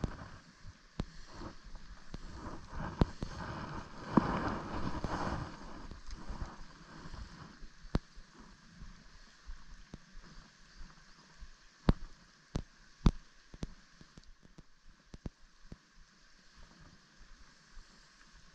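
A river's steady rush, with wind gusting on the microphone more strongly in the first few seconds. Scattered sharp clicks and knocks cut through it, several of them close together in the second half.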